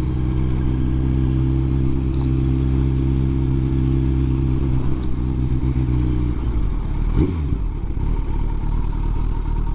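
Kawasaki Z900 SE's inline-four engine running steadily under way, picked up by a helmet mic. About six seconds in the engine note changes as the bike slows, with a brief rev near seven seconds.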